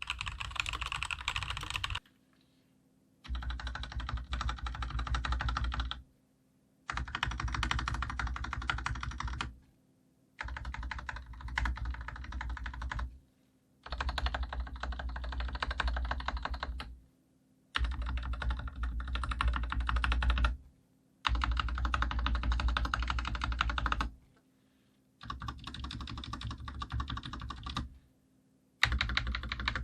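Fast typing on a COX CK108 BT full-size mechanical keyboard with Gateron Yellow linear switches and PBT double-shot keycaps: dense key clatter with a solid, heavy bottom-out thud. It comes in about nine runs of two to three seconds each, separated by short silent breaks.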